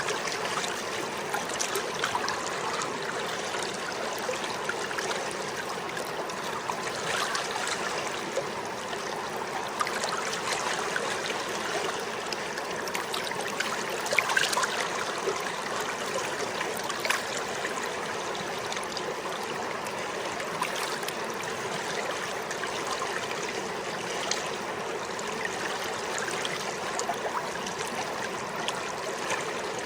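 The Kings River flowing: a steady rushing of running water with small splashes scattered through it.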